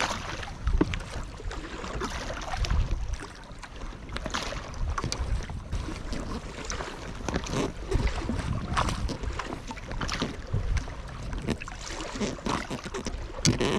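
Double-bladed kayak paddle strokes dipping and splashing in lake water alongside an inflatable packraft, repeating every second or two, with wind rumbling on the microphone.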